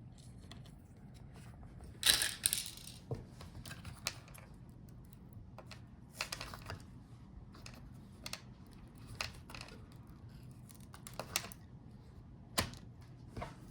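Irregular small clicks, taps and short scrapes of hands and tools handling a laptop's motherboard and internal parts, the longest scrape about two seconds in.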